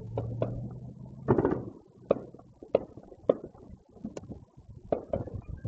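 Distant fireworks going off: a series of sharp bangs and pops, the loudest about a second in with a short echoing tail. A low steady hum sounds under the first second.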